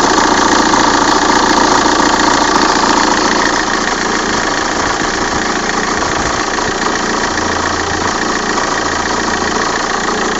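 Opel Vectra C's 1.9 CDTI diesel engine idling steadily after a cold start, with the strange noise and vibration that the owner hears only in the first minutes of a cold idle. The dual-mass flywheel was replaced a month ago. The sound eases slightly about three and a half seconds in.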